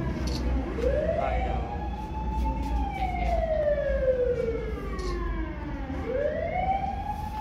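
A siren wailing slowly. Its pitch climbs quickly, sinks gradually over about five seconds, and climbs again about six seconds in, over a steady low rumble.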